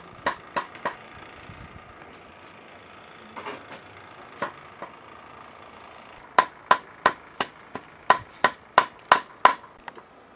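Knife chopping on a cutting board: a few scattered strokes at first, then a steady run of about three chops a second in the second half.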